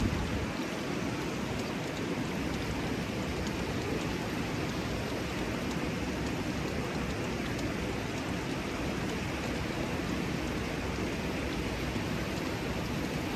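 Steady rushing of a small waterfall and stream of water running over rocks.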